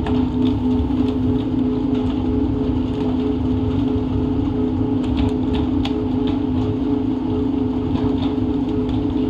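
A fishing boat's engine running steadily: a constant deep hum with a slightly pulsing higher tone over a low rumble. A few light knocks come a little past halfway through.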